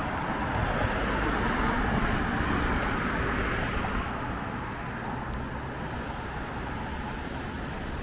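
Road traffic noise: a car passing along the street, loudest about two seconds in and easing off after about four seconds, over a steady traffic hum.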